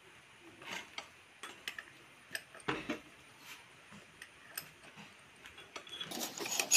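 Irregular light metallic clicks and clinks of a box spanner and lever rod working on the pinion flange bolts of a differential housing, as the bolts are tightened. The clinking grows busier and louder near the end.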